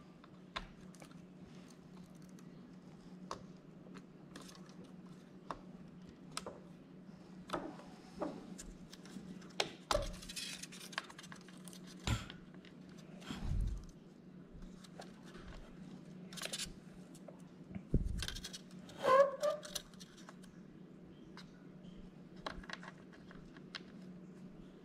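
Fingers handling a Framework laptop's keyboard ribbon cable and connector while seating it: scattered faint clicks and taps of plastic and small parts, a few sharper knocks in the middle stretch, over a steady low hum.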